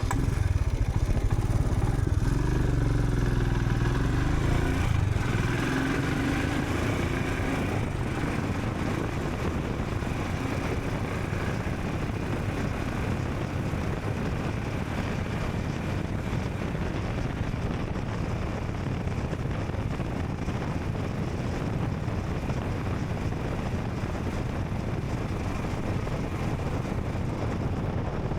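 Royal Enfield Scram 440 motorcycle's single-cylinder engine running, its pitch rising and falling for the first several seconds, then settling into a steady, noisier riding sound.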